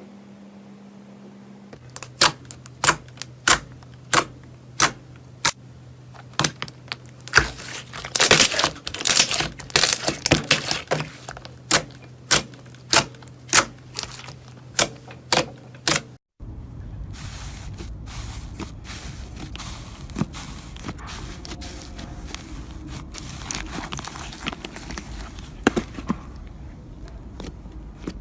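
Slime being handled, giving sharp crackling pops about once or twice a second, thickest near the middle. After a sudden cut it turns to a quieter, continuous crackly rustling.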